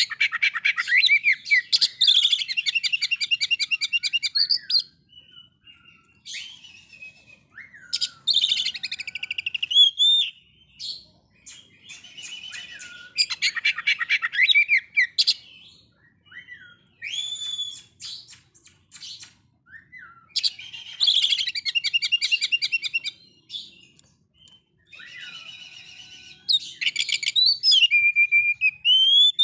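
Male oriental magpie-robin (kacer) singing in bouts a few seconds long, separated by short pauses. The bouts mix rapid repeated notes, buzzy runs and clear rising whistles.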